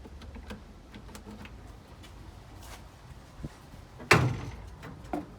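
Handling clatter: scattered small clicks and knocks, then one sharp loud bang about four seconds in with a short ring-off, and a smaller knock just after five seconds.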